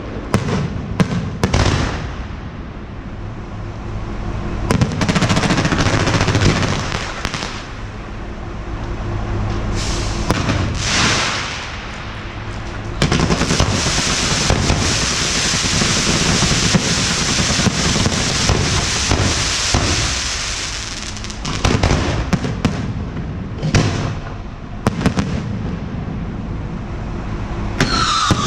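Fireworks and firecrackers going off: scattered sharp bangs and crackling, with long stretches of loud hissing from burning fireworks between them.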